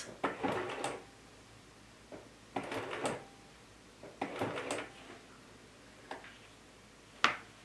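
Handling noises at a sewing machine as fabric and hands are adjusted under the presser foot: three brief scuffs, then a sharp click near the end.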